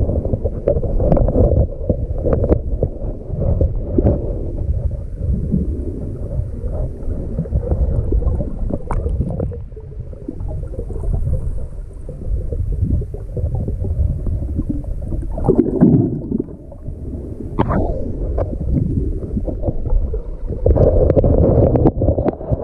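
Muffled rumbling and gurgling of water around a camera held underwater, with scattered clicks and knocks.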